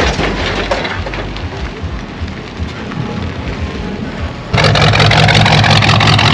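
A car engine running amid outdoor noise as cars roll through. About four and a half seconds in, loud music cuts in suddenly.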